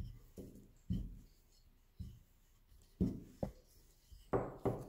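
Wooden rolling pin rolling out a thin round of malawah dough on a table, a soft thump and rub with each stroke, about eight irregular strokes that grow louder towards the end.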